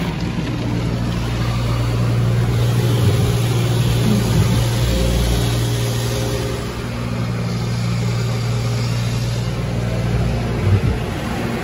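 Automatic tunnel car wash heard from inside the vehicle's cabin: water spraying and streaming over the windshield over a steady low machinery hum.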